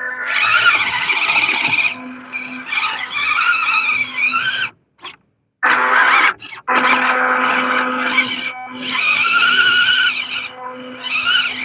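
Stock 180 electric motor and gearbox of a WPL C24 1/16-scale RC truck whining as it drives, the pitch rising and falling with the throttle. The sound cuts out completely for about a second near the middle, and again briefly just after.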